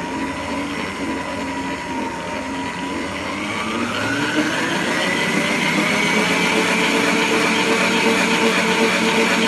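Electric stand mixer beating cake batter with a wire whisk in a stainless steel bowl. The motor whine rises in pitch and gets a little louder about three to five seconds in as the mixer speeds up, then runs steadily at the higher speed.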